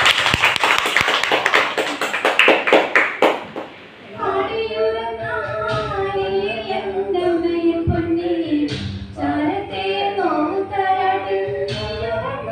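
A few seconds of clapping, then a woman singing solo without accompaniment, with long held notes.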